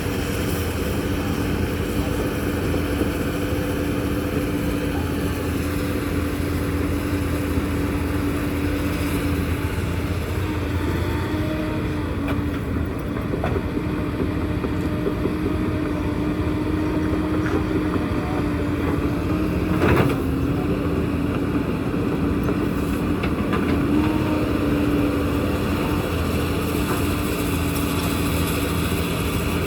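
Heavy construction machinery's diesel engine running steadily, with a single sharp knock about two-thirds of the way through.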